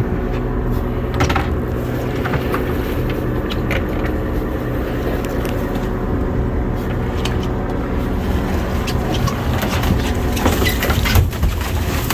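A boat's engine running steadily, with scattered knocks and thumps on board, more of them near the end.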